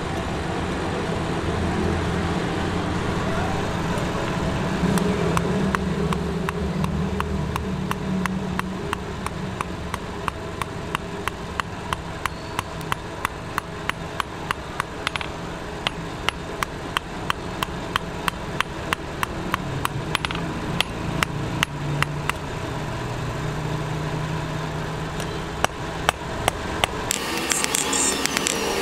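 Hand hammer beating red-hot steel on an anvil as a razor blade is forged. The blows start about five seconds in and go on in a steady run of about three a second, over a steady low hum.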